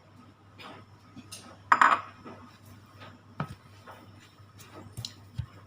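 A cooking utensil clinking and knocking against a pan as breadcrumbs are added to melted butter and spring onion, with one louder ringing clink about two seconds in.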